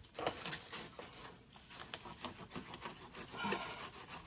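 Fillet knife scraping in short back-and-forth strokes as it is pushed and pulled between a red snapper fillet and its skin on a plastic cutting board.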